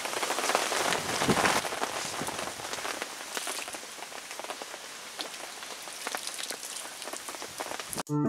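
Steady rain falling, a dense hiss of many small drop ticks, a little louder in the first two seconds. It cuts off abruptly about eight seconds in.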